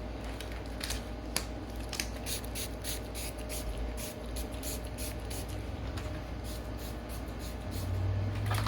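Hand spray bottle giving many short squirts in quick succession as keycaps and their packaging are sprayed down, with a steady low hum underneath.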